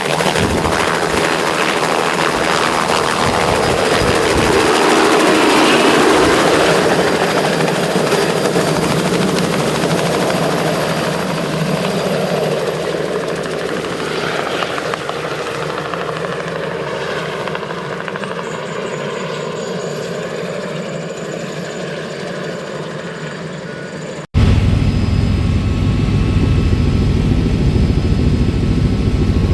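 Helicopter flying past, its rotor noise sweeping in pitch as it goes by and then slowly fading. About 24 seconds in, an abrupt cut to a steady, deeper helicopter drone.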